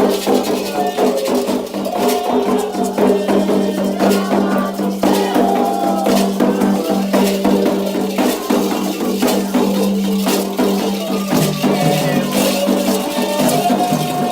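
Music: a rattle shaken in a quick, steady rhythm over a long held low tone and a higher melody line that moves in pitch; the low tone steps down about eleven seconds in.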